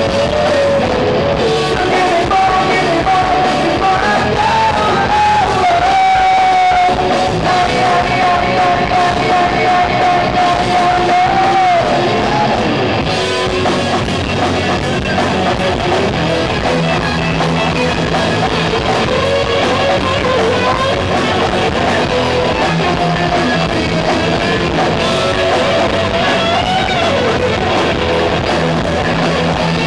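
Live rock band playing: electric guitars and a drum kit, with a man singing.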